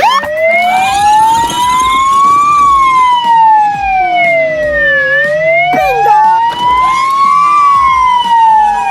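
Police siren wailing, its pitch rising and falling slowly, about one rise and fall every five seconds, with quicker sweeping siren tones laid over it midway and near the end.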